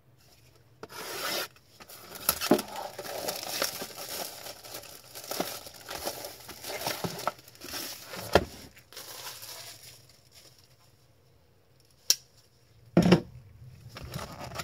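Plastic shrink wrap being cut and torn off a cardboard card box, crinkling and tearing, with a few sharp knocks as the box is handled.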